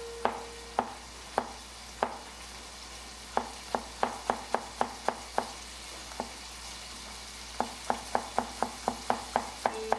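Chef's knife chopping garlic on a plastic cutting board: sharp knocks in uneven runs of up to about four a second, with a pause in the middle. Underneath, diced bacon frying in a pan with a steady faint sizzle.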